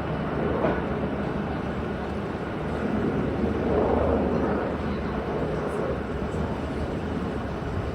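Agusta Caweel CW-86 vehicle sound effect: a steady running engine noise with a low hum, swelling slightly in the middle.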